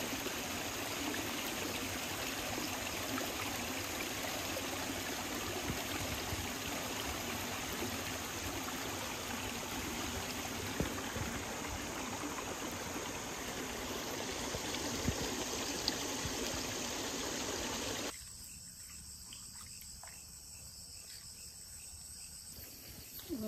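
Steady rush of water flowing through shallow water. About three-quarters of the way in it cuts off suddenly, leaving a much quieter background with a few faint clicks.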